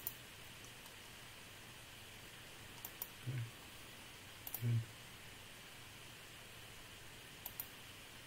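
Computer mouse clicking: three pairs of quick clicks a second or two apart, with two brief low sounds between them over a faint steady hiss.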